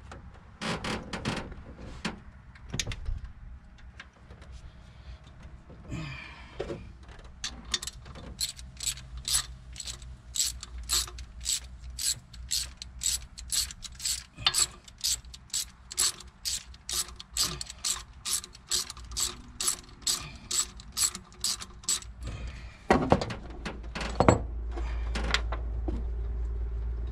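Hand ratchet with a socket loosening a throttle-body bolt: an even run of ratchet clicks, about three a second, after a few scattered clicks. A steady low rumble comes in near the end.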